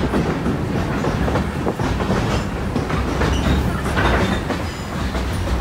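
Railroad caboose rolling along the track, heard from on board: a steady low rumble with the clickety-clack of wheels over rail joints and scattered metallic clicks.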